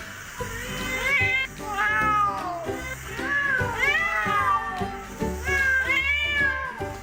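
Cat meowing several times in drawn-out, arching calls over background music.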